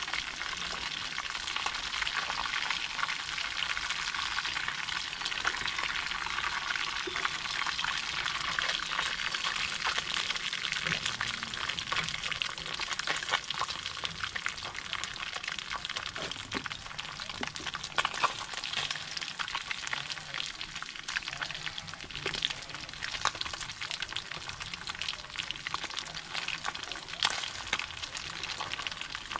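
Tilapia frying in hot oil in a metal pan: a steady crackling sizzle with many small pops, and a few sharper pops, one about two-thirds of the way through and one near the end.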